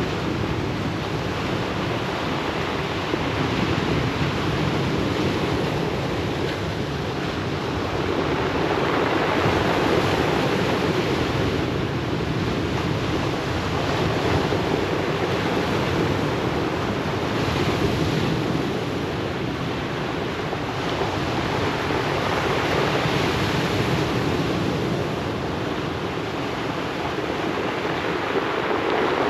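Ocean waves breaking and washing on the shore, a continuous surf that swells and eases every few seconds.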